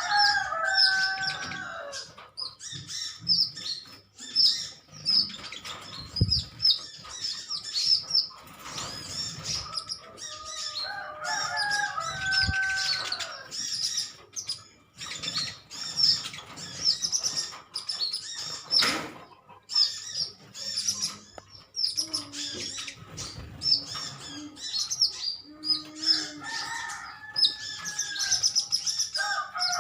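A group of sunbirds chirping rapidly and continuously in high, thin notes. Three times, about a second in, around twelve seconds in and near the end, a lower call of several held tones sounds with them.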